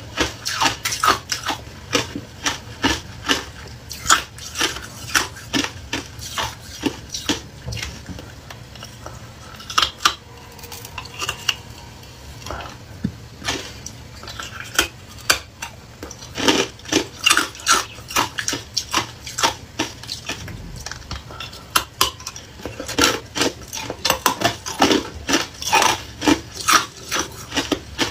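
Hard clear ice being bitten and chewed, close up: rapid sharp cracks and crunches that thin out in the middle stretch and come thick and fast again near the end.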